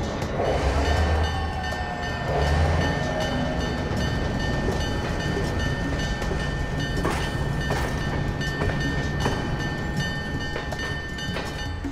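Freight train with diesel locomotives getting under way: a steady low rumble with a thin high tone held over it. There are a few sharp clanks about seven to eight seconds in.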